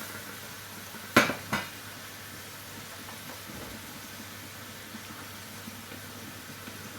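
Onions and mushrooms sizzling steadily in a hot frying pan, with two sharp clanks of a utensil against the pan about a second in.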